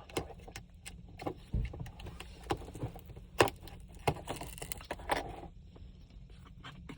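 Irregular small clicks and taps over a faint low hum, with a dull thump about a second and a half in and the sharpest click about halfway through.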